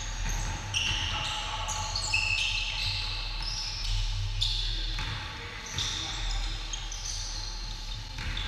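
Sneakers squeaking on a hardwood gym floor, many short high squeaks, with a basketball bouncing a few times during a full-court game. The sound echoes around a large gym hall.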